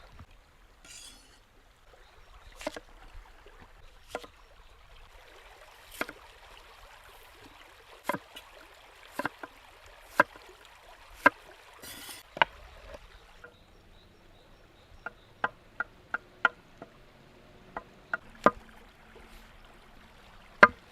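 A series of sharp knocks and taps, spaced irregularly about a second apart at first, then quicker lighter taps in the last third. A faint stream runs underneath.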